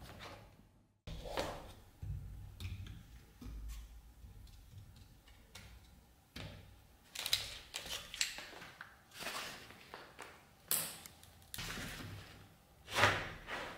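Clamps and wooden scabbard pieces being handled on a workbench: a series of irregular knocks, clicks and clunks, with the loudest knock near the end.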